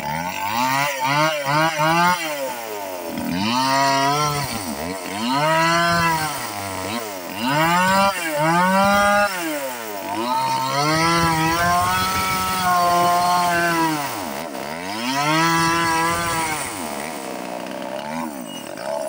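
Stihl chainsaw revved up and down over and over: a quick run of short throttle blips at first, then about five longer revs that each climb and fall back toward idle, one held high for a couple of seconds.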